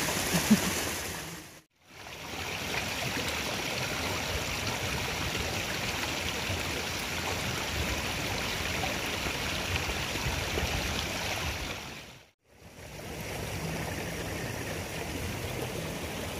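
Steady rush of water running in a narrow irrigation ditch, with one sharp tap just after the start. The sound fades to near silence twice, briefly, about two seconds in and again about three-quarters of the way through.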